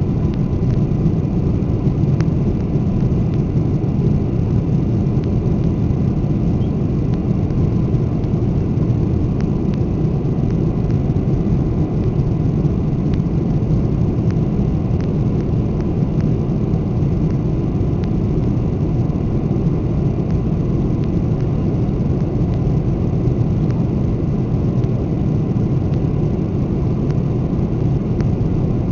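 Steady cabin noise of a four-engined Boeing 747-400 climbing out after takeoff: a deep, even rumble of the jet engines and rushing air, with faint steady high tones above it.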